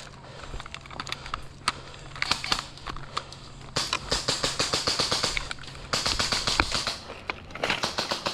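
Airsoft electric guns firing on full auto: scattered single shots, then two long rapid bursts about four and six seconds in, and a shorter burst near the end.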